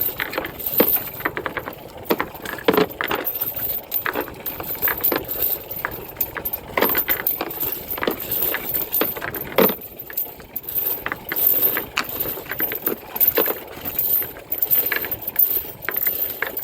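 Anchor chain links clinking and rattling as the chain is handled, with many irregular sharp metallic knocks.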